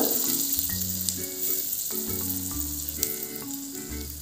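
Butter sizzling under a brown-bread sandwich toasting in a flat pan on a low gas flame, a steady gentle hiss. Soft background music notes play underneath.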